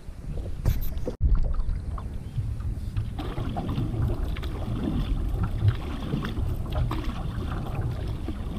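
Stand-up paddleboard being paddled across open water: water washing along the board with paddle strokes, under a heavy wind rumble on the board-mounted camera's microphone. The sound breaks off abruptly about a second in, where a cut leads into the paddling.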